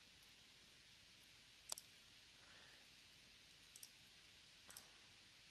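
Computer mouse clicking three times against near-silent room tone, about two seconds in, near four and just before five, each click a quick double tick.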